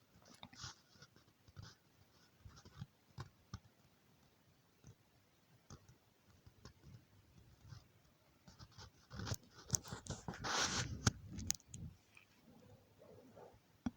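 Fine inductor wire being scraped bare so it will make contact for soldering: light, scattered scratches and ticks, busiest and loudest for a couple of seconds after about nine seconds in.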